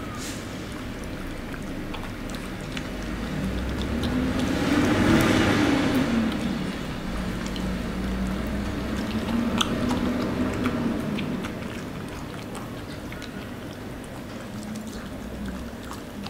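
A bichon licking and lapping broth off a spoon, a run of small wet smacking clicks. Behind it a broad rumble swells and fades, loudest about five seconds in and again around ten seconds.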